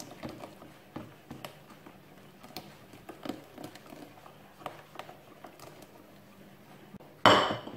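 Melted margarine poured in a thin stream into soft batter in a plastic mixing bowl: faint, scattered small ticks and soft spattering. A sudden loud clatter near the end.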